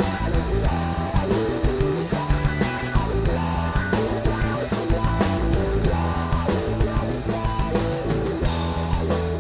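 Live rock band playing an instrumental passage: two electric guitars over a drum kit, with a steady beat.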